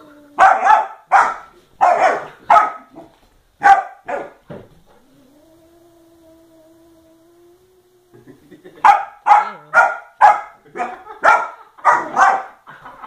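Puppy barking at a cat in two runs of sharp barks, about two a second. Between the runs there is a pause of a few seconds filled by a quieter, steady, drawn-out low cry.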